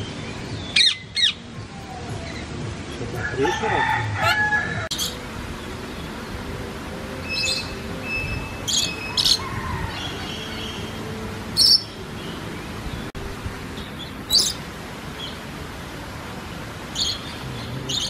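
Parrots giving short, sharp screeching calls, irregularly spaced a second to a few seconds apart, over a steady background hiss.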